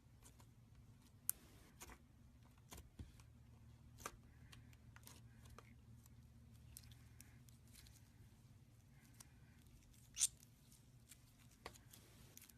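Faint, scattered sticky clicks and crackles from gold slime being handled, with a steady low hum underneath; the sharpest pops come about a second in and about ten seconds in.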